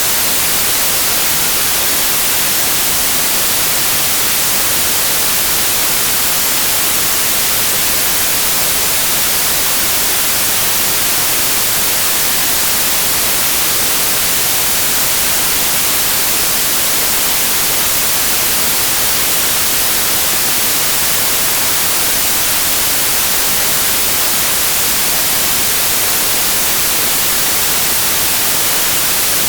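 Steady synthetic white noise: an even, unbroken hiss, brightest in the highs, played as a tinnitus masker.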